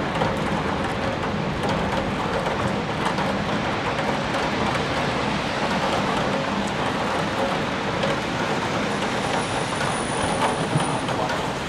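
Heavy rain falling steadily during a thunderstorm, with scattered drops ticking on a nearby surface.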